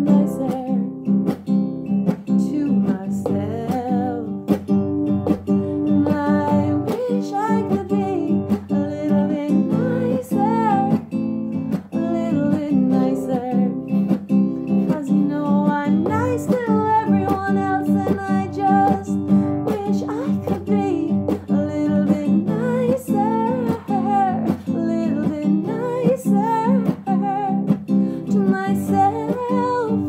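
A woman singing while strumming an acoustic guitar in a steady rhythm.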